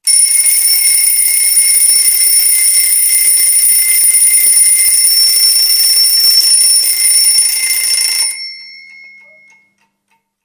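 Twin-bell alarm clock ringing: a loud, continuous, high-pitched metallic ringing that starts suddenly, runs about eight seconds, then stops and dies away over a second or so.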